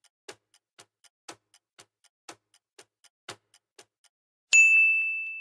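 Countdown-timer sound effect: clock-like ticking, about four ticks a second, stops about four seconds in. Half a second later a single bright ding rings out and fades, marking the end of the answer time.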